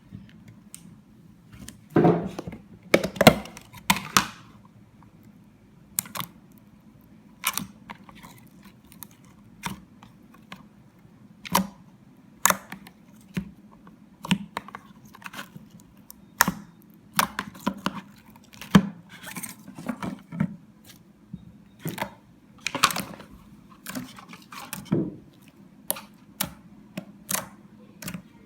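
Slime being squeezed and poked by hand, giving irregular sharp clicks and pops, with busier runs of them a few seconds in and again near the end.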